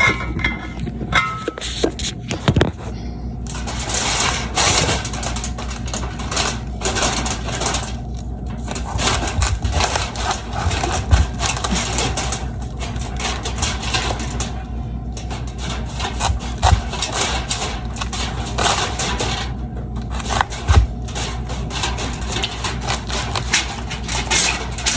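A kitchen knife cutting and scraping into the dense core of a whole raw cabbage to hollow it out, making a busy run of crisp scrapes and small clicks.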